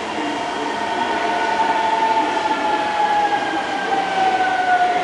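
Hitachi GTO-thyristor VVVF inverter and traction motors of an Osaka Metro 22 series subway train, heard from inside the car: a whine falling steadily in pitch as the train brakes, over the rumble of the wheels on the rails.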